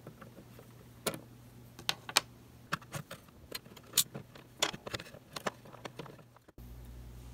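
Small, sharp metallic clicks and taps, about a dozen at irregular intervals, as metal tweezers work the brush plate out of a TYCO MU-2 model locomotive motor. They stop abruptly near the end.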